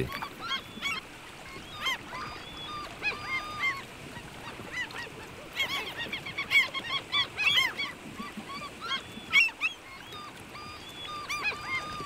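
Large gulls calling around a breeding site: many short overlapping calls coming in clusters, mixed with a few thin, steady whistled notes.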